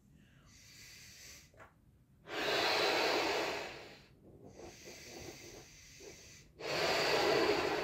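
Latex party balloon being blown up by mouth: two long, strong breaths blown into it, each lasting well over a second, about three seconds apart, with quieter breathing and handling between them.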